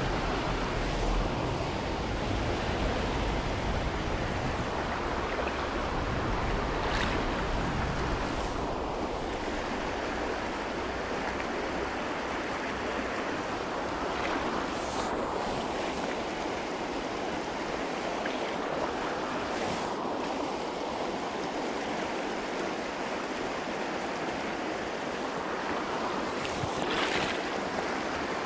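Shallow stream rushing steadily over rocks, with wind buffeting the microphone for roughly the first ten seconds and a few brief swishes.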